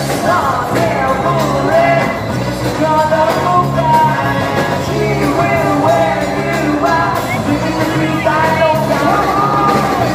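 Live band playing, with a lead singer over guitar, bass and drums, recorded from the audience in a club.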